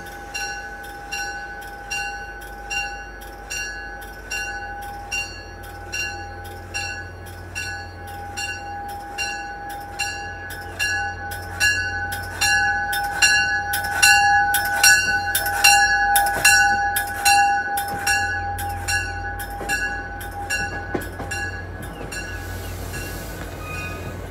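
A bell ringing in a steady rhythm, about once a second at first, then quicker and louder midway before stopping near the end, over the low rumble of an MBTA commuter rail train pulling out of the station with its coaches rolling past.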